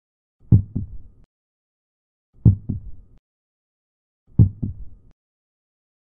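Slow heartbeat sound effect: three low double thumps (lub-dub), about two seconds apart, with silence between.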